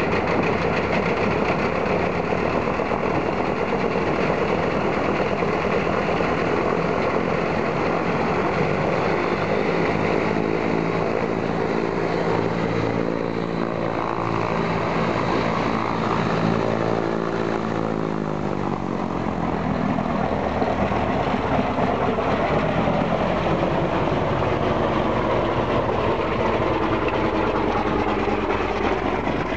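Ilyushin Il-14T's Shvetsov ASh-82T radial piston engine running steadily, just brought to life on its first start after years out of use. Its pitch shifts for a few seconds about halfway through.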